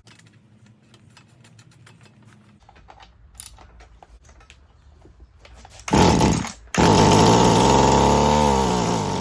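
Mantis tiller's small two-stroke engine catches about six seconds in, running on fuel squirted straight into the cylinder. It stumbles for a moment, then runs fast for a few seconds, its pitch sagging near the end. Light clicks and rattles of handling come before it; the engine firing confirms spark and compression, pointing the no-start fault at the carburetor.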